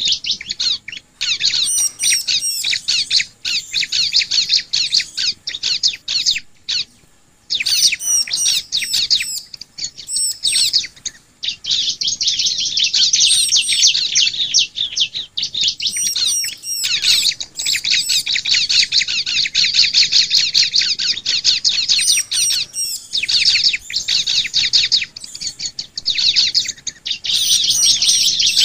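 Bar-winged prinia (ciblek) singing: a very fast, high-pitched chattering song in long runs broken by short pauses, with a longer pause about seven seconds in.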